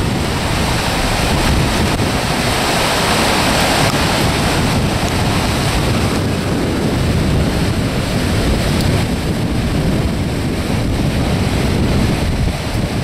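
Muddy floodwater rushing in a steady torrent through a canal channel, with wind noise on the microphone.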